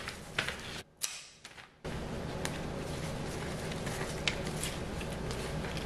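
Hydrangea stems, leaves and a plastic flower sleeve rustling and crinkling as the flowers are handled into a glass vase, with light clicks and taps. A steady low hum comes in about two seconds in.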